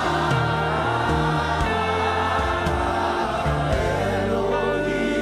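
Gospel worship music: a choir of voices singing over sustained instrumental chords and bass.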